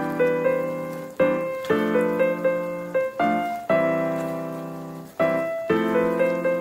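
Background piano music: sustained chords struck about every second and a half, each fading away before the next.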